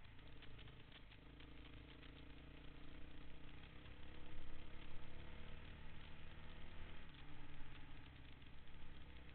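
Honda dirt bike engine running while the bike is ridden along a dirt trail. The engine note changes pitch about a second in and again near the end as the throttle changes, and gets louder around the middle, with rattling over the noise of riding.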